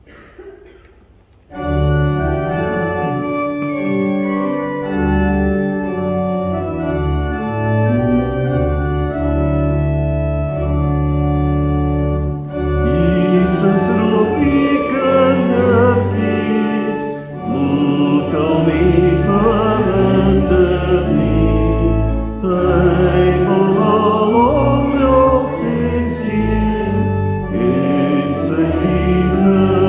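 Church organ playing a hymn introduction with steady held chords, starting about a second and a half in. Partway through, the congregation comes in singing the first verse of the hymn along with the organ.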